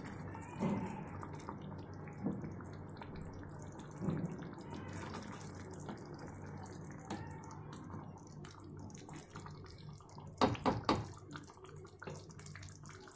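A wooden spatula gently stirring okra and potato curry in thick tomato gravy in a steel pan, making soft wet sloshing over a low steady hum. A few sharp knocks come near the end.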